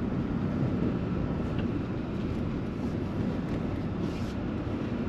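Steady low rumble of a Ram pickup truck driving, engine and road noise together.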